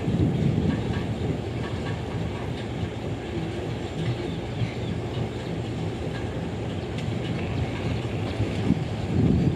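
Train running on the rails: a steady low rumble with some wheel clatter.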